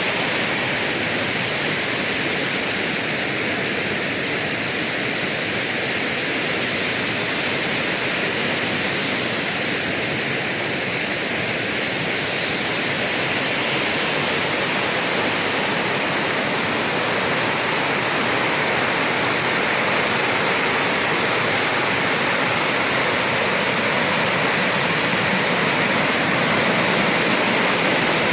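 A waterfall's steady rush of falling water, loud and even.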